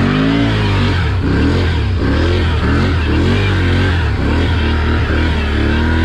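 Can-Am ATV engine being ridden through mud, its pitch rising and falling repeatedly as the throttle is worked on and off.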